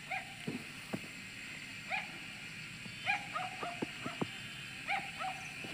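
An animal calling in short, repeated calls, often two or three in quick succession, with a few soft thumps between them.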